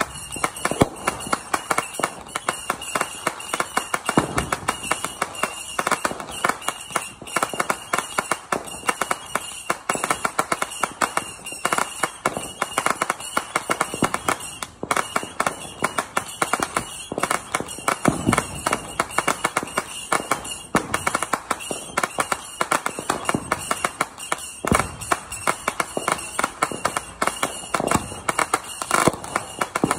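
Consumer fireworks going off in a steady barrage of sharp pops and crackles, several a second, with a few deeper bangs in between.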